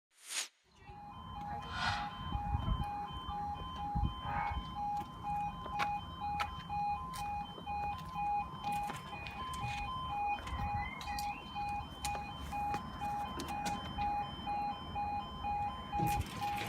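Level crossing audible warning alarm sounding continuously in a rapid pulsing two-tone pattern, with a low rumble beneath and occasional clicks.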